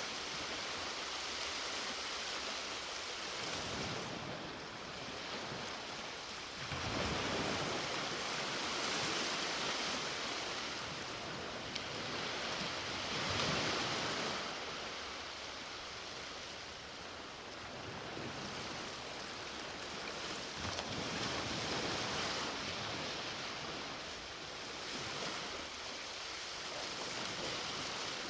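Ocean waves breaking and washing up the beach: a steady rushing hiss that swells and ebbs, with a surge every few seconds.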